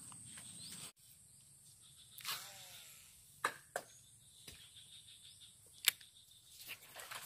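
Baitcasting rod and reel handled during a cast to the water: a swishing swell about two seconds in, then a few sharp clicks from the reel, over a faint steady high insect drone.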